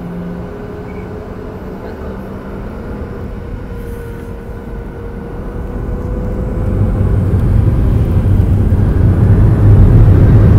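Airliner's jet engines heard from inside the cabin: a steady running sound with a thin, slightly rising whine. About six seconds in it grows much louder, with a deep rumble building, as the engines spool up for takeoff.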